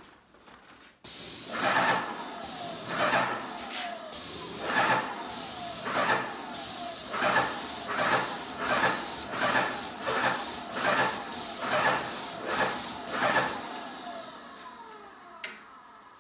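Graco GX FF airless paint sprayer gun spraying in about sixteen short, loud hissing bursts, each trigger pull laying a pass of paint across a cabinet door. The bursts stop about two seconds before the end.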